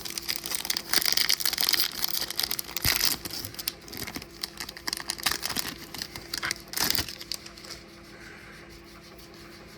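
A foil baseball card pack wrapper being torn open and crinkled, the crackling loudest in the first few seconds, then quieter rustling as the cards are handled.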